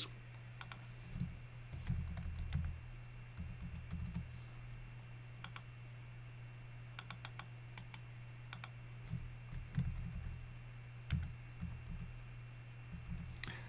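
Faint, scattered keystrokes and clicks on a computer keyboard, a few at a time with pauses between, over a steady low hum.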